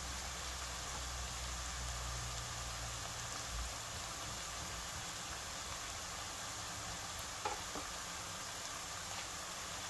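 Sliced onions and garlic sizzling steadily in hot oil in a pot, with a light click about seven and a half seconds in.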